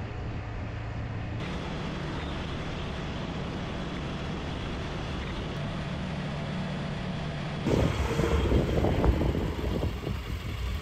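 Motorcycle engines running at cruising speed, a steady drone over road and wind noise. About two-thirds of the way through this gives way to a louder, uneven rumble.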